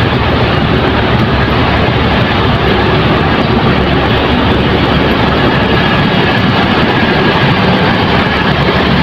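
Steady, loud road traffic noise: a continuous rumble of vehicle engines with a low hum underneath.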